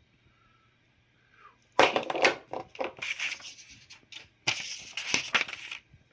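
A sheet of paper being handled and rustled, in two spells of crinkling: one starting about two seconds in, the other about four and a half seconds in.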